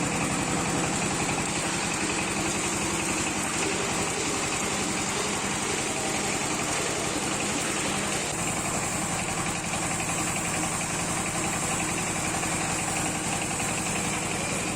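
Mustard-oil expeller machine running steadily while pressing mustard seed, with a fast, even mechanical pulsing. The tone shifts slightly about eight seconds in.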